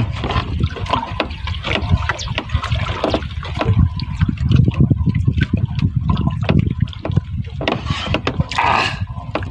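Sea water lapping and sloshing against a small boat's hull, a steady low rumble with many short knocks throughout.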